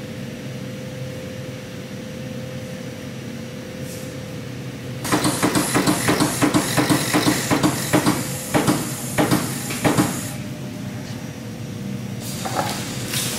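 Hydrostatic test pump pressurising a gas lift mandrel with water: a run of quick, loud hissing pulses, about three a second, starting about five seconds in and lasting some five seconds, over a steady shop hum.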